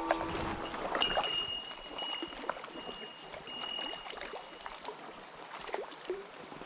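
Mountain stream water running, with a thin, steady high-pitched tone sounding on and off over about four seconds in the middle.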